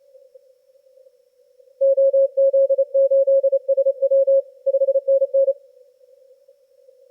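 Morse code (CW) signal on a Yaesu FTdx10 transceiver's receiver, heard through a narrow CW filter. Faint band noise is squeezed into one thin pitch band. About two seconds in, a strong single-pitch tone starts keying dits and dahs for about four seconds, then stops.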